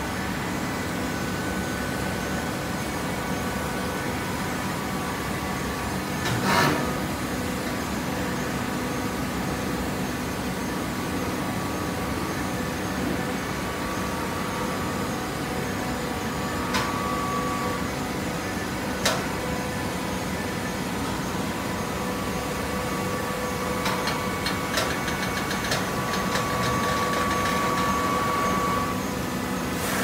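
TCM horizontal hydraulic baler running with a steady hum from its hydraulic power unit, broken by a loud clank about a fifth of the way in and two sharp knocks past the middle. Near the end comes a run of rapid clicking, and a whine rises a little louder before it drops away.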